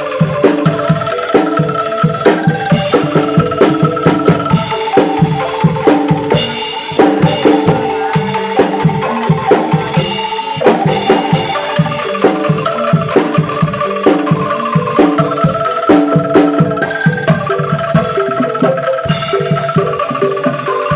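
Angklung ensemble playing a melody, the shaken bamboo tubes sounding held notes that change in a tune, over a steady beat of drum strikes.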